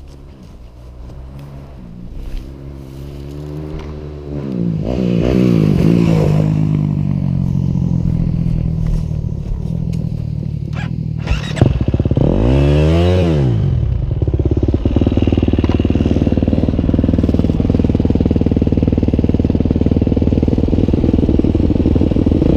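Dirt bike engine revving hard as the rider accelerates, with a big rise and fall in pitch about a quarter of the way in and another just past halfway; a sharp knock comes just before the second rev. The engine then settles into a steady note. The second rev fits a quick throttle tap over a jump, which the rider says brought the tilted bike back straight.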